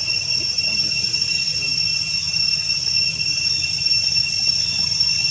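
Steady high-pitched insect drone from the surrounding forest, an unbroken whine over a low rumble.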